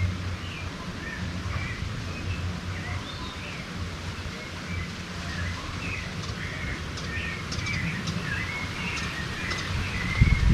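Birds chirping with many short, quick notes, some rising and some falling, over a steady outdoor hiss.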